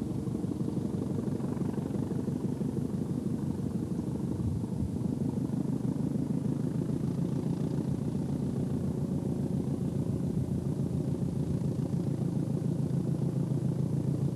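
Hastings diesel-electric multiple unit approaching and passing close by, its English Electric diesel engine running with a steady, throbbing beat that grows a little louder toward the end.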